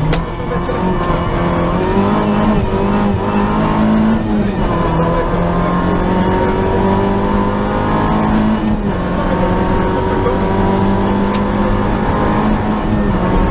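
Peugeot 205 GTi rally car's engine heard from inside the cabin, accelerating hard up through the gears. The pitch climbs, then drops at upshifts about four and a half and about nine seconds in, and climbs again after each.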